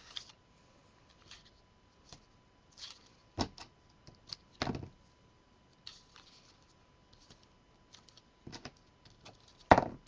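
Adhesive tape being pulled from a roll and pressed onto cardstock on a cutting mat: scattered taps and clicks with a short rustle about six seconds in, the sharpest tap just before the end.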